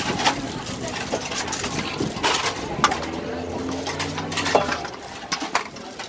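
Metal ladle clinking and scraping against a stainless steel mixing bowl as spicy crab salad is scooped out, with several sharp clinks. A bird coos low in the background about halfway through.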